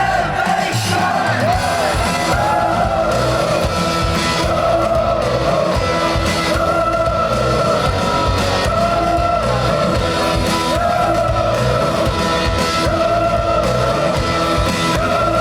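Rock band playing live: electric guitar over drums and bass, with some singing.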